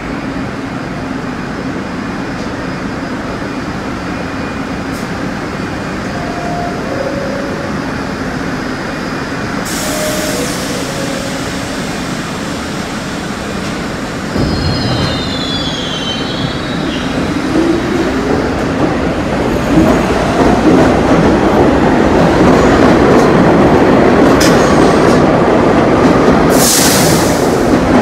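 New York City IRT subway train pulling out of the station. A sudden hiss of air comes about ten seconds in. Past halfway the train starts off and its motors give a climbing whine as it speeds up, growing louder as the cars rush past, with a second hiss near the end.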